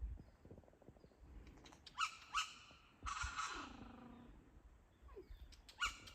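A bird calling in the bush: two short calls about two seconds in, a longer call about a second long that drops in pitch at its end, and another short call near the end.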